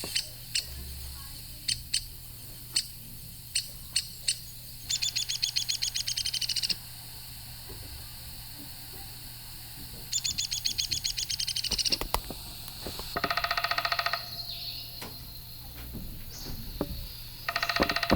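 Downy woodpecker calls: a string of sharp single pik notes, then two fast, high rattled whinnies that fall slightly in pitch, and near the end two lower-pitched rattling calls.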